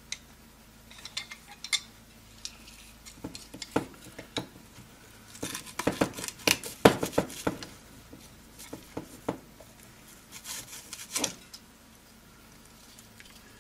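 Metal clinks, scrapes and crunches of a large wrench working a hot-air gun's heating element out of its stainless-steel barrel and breaking up its foil wrapping. Scattered sharp clicks, busiest through the middle and again shortly before the end.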